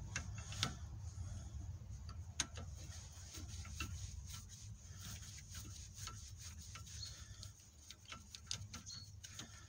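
Light, irregular metallic clicks and ticks of a Torx bit on an extension bar turning and catching in the small Torx cap-head bolts of a van's front wheel hub. A faint steady low hum underneath.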